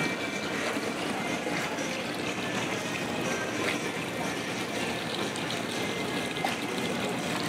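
Steady trickling and splashing of running water.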